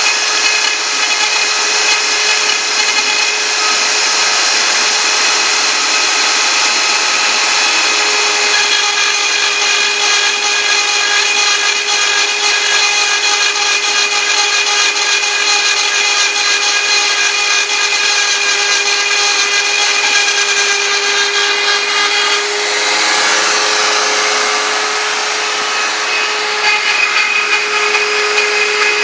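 CNC router milling Thai lettering: the spindle cuts steadily while the axis motors drive it, making a continuous high whine over a hiss. The mix of tones shifts about three-quarters of the way through, as the tool's path changes.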